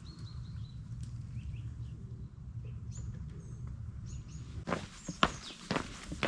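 Small birds chirping in short high calls over a steady low rumble. About three-quarters of the way in, footsteps on a trail take over, about two steps a second.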